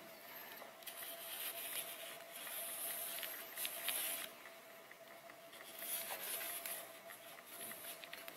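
Gloved hands handling and turning an air stapler's cylinder cap and parts: soft rubbing and scraping of the glove fabric on metal, with a few small clicks, loudest about a second in to about four seconds in and again around six seconds in.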